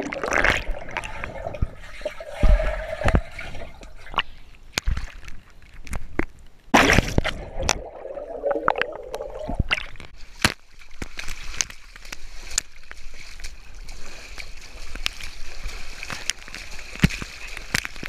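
Swimming-pool water sloshing, bubbling and splashing right at a waterproof action camera as it goes under and back above the surface, with a loud splash at the start and another about seven seconds in. Kicking feet splash the water near the end.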